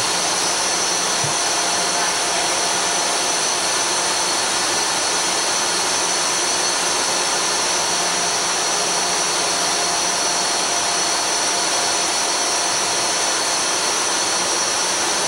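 Machinery in a Knox-class frigate's steam engine room running underway: a loud, even rush of noise with several high, steady whines on top, unchanging throughout.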